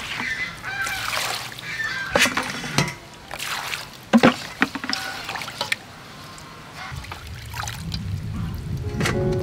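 Water splashing and sloshing in a steel bowl as leafy greens are rubbed and swished by hand, with several sharp splashes. Bird calls sound in the background during the first second or so, and music comes in near the end.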